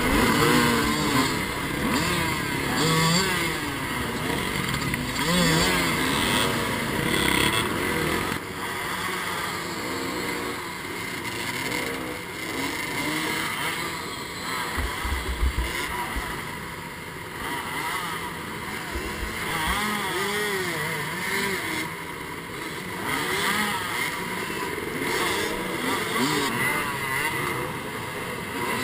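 Several dirt bike engines revving at once, their pitches rising and falling over one another as riders try to climb a steep rocky hill.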